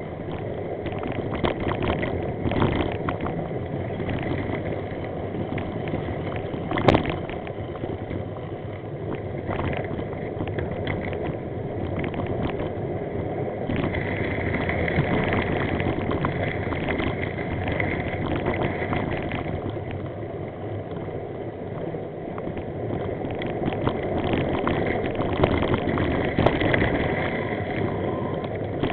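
Wind rushing over the microphone of a cyclist's camera while riding a rough dirt track, with frequent rattles and knocks as the camera and bike jolt over the bumps. One sharper knock comes about seven seconds in.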